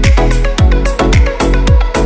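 Background music with a steady beat: a deep kick drum, falling in pitch on each stroke, about two beats a second.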